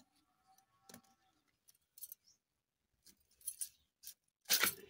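Raw green mangoes being split on an upright floor-mounted cutting blade (boti): about six short, crisp cutting crunches, the loudest near the end.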